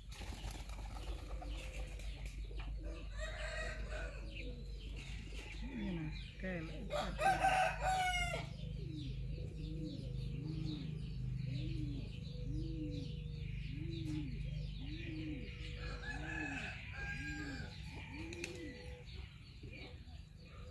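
A rooster crowing once, loud, about seven seconds in, amid other farmyard fowl calls. After it comes a long run of low calls repeated evenly, a little more than one a second.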